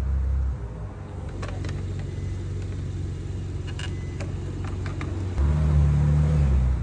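A Ferrari's engine running with a low, steady rumble, louder for a moment at the start and again for the last second and a half as the car pulls away. A few light clicks in between.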